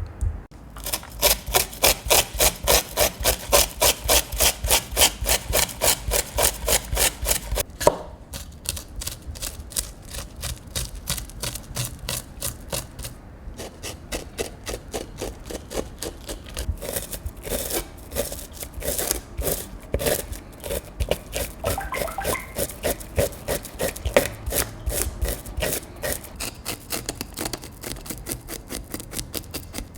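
A knife scraping the scales off a grouper in quick, rhythmic strokes, about four a second. The strokes are strongest for the first several seconds, then come lighter and less even after a sharp knock.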